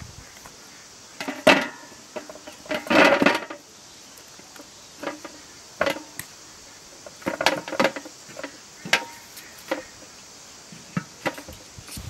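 Whole cauliflower heads with their leaves sliding off a metal tray into a large metal pot: a string of irregular knocks, rustles and clanks, loudest about a second and a half in and again around three seconds in.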